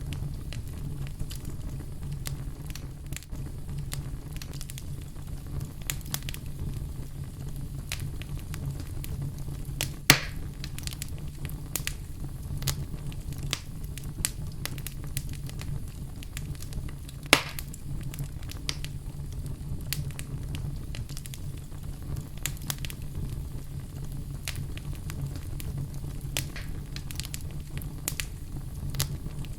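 Wood fire burning in a fireplace: a steady low rumble of flame with frequent small crackles, and two louder pops about ten and seventeen seconds in.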